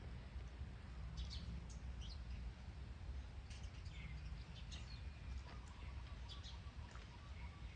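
Scattered short, faint bird chirps, some sliding up or down in pitch, over a low steady rumble.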